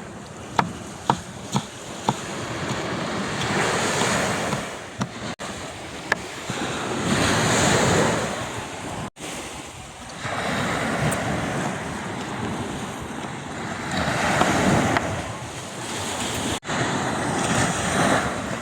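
Sea waves washing in and receding, swelling and fading every few seconds, with wind on the microphone. A few sharp clicks or knocks come in the first couple of seconds.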